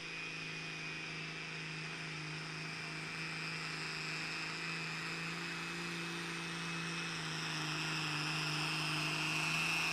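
Turbocharged pulling tractor's engine running at high revs under full load as it drags the weight sledge, a steady drone with a high whine on top, growing gradually louder.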